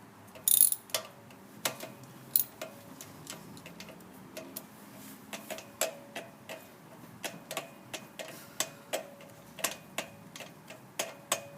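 Irregular light metallic clicks and clinks from hand tools working on a car engine during a spark plug change, with a sharper, louder click about half a second in.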